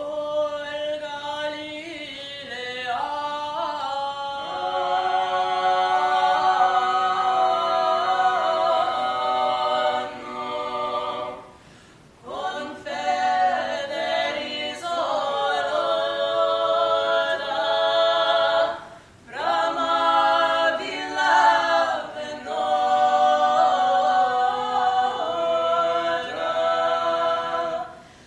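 A trio of voices singing a cappella in close three-part harmony, in long sustained phrases broken by short pauses for breath about 12 and 19 seconds in.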